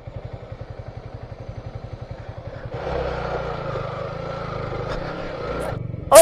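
Motorcycle engine running with a steady low putter, faint at first and louder about three seconds in, with a held whine over it; it drops away just before a loud sudden sound at the very end.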